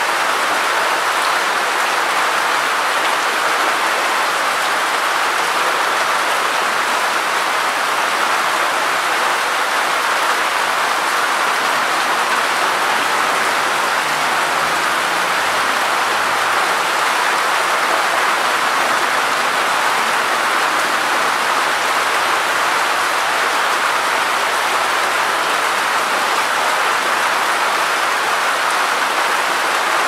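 Steady rain falling, an even hiss that keeps up without a break.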